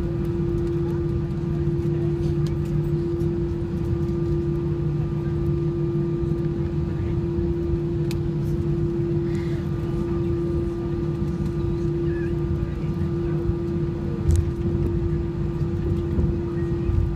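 Boeing airliner cabin noise while taxiing after landing: the engines run at low thrust under a steady hum, with a low rumble from the rolling gear. There is a single bump near the end.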